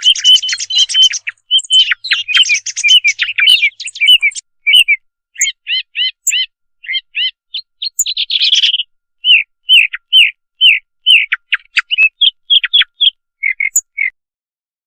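Recorded thrush song used as a hunting lure call: a rapid jumble of chirps and whistled notes, then short repeated phrases of sharp chirps, stopping about a second before the end.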